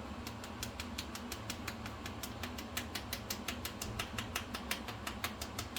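Kitchen sifter clicking steadily, about six or seven clicks a second, as cocoa powder is sifted over a tiramisu.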